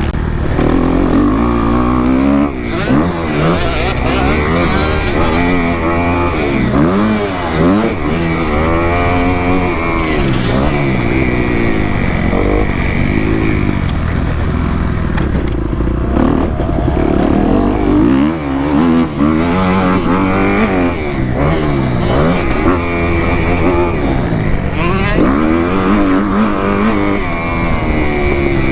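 Kawasaki KX250 motocross bike engine revving hard and falling back again and again, its pitch rising and dropping with throttle and gear changes, over a steady low wind rumble on the microphone.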